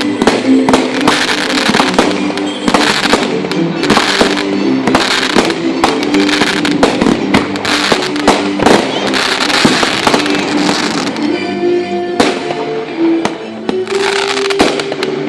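Fireworks going off in rapid succession, with many sharp bangs and crackling, over music playing underneath.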